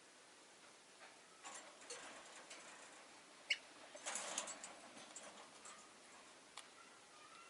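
Rosy-faced lovebirds stirring in their cage: scattered light clicks and rustling, a single sharp tick about three and a half seconds in, and a short burst of wing flutter about four seconds in.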